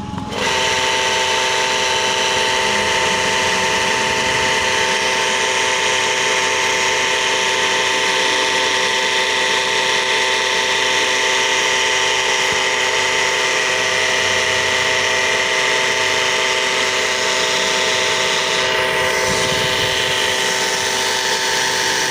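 Karcher electric pressure washer running steadily, its motor and piston pump giving a steady hum with a fast even pulse; it starts about half a second in. The pump is running after a repair of its piston section, which had been leaking oil mixed with water.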